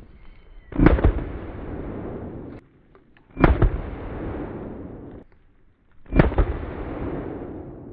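Three heavy gunshots about two and a half seconds apart, each followed by a long rolling echo that fades before the next.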